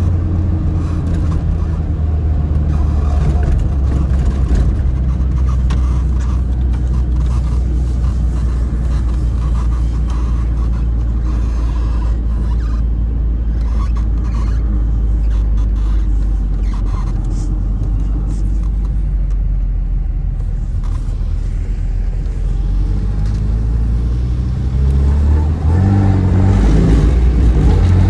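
Tofaş car's four-cylinder engine and exhaust heard from inside the cabin while driving, a steady low drone; near the end the revs climb and the engine gets louder.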